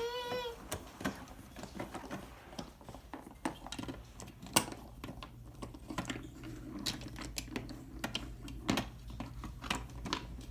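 Irregular clicks and knocks of Brio wooden toy trains and track pieces being handled and knocked together, with one sharper knock about halfway through.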